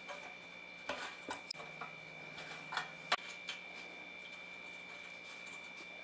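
A few light clicks and taps, as of small hard parts being handled. Under them runs a faint, steady, high-pitched tone.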